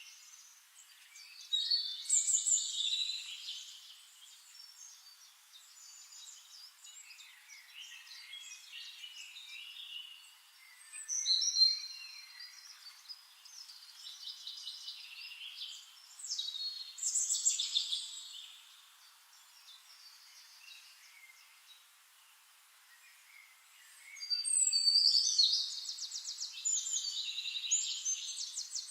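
Songbirds singing: bursts of quick, high twittering phrases and trills, the loudest about every six to eight seconds, with softer chirps between.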